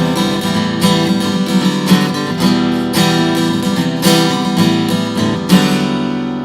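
Acoustic guitar strummed in a steady rhythm, closing the song with a last chord about five and a half seconds in that rings out and fades.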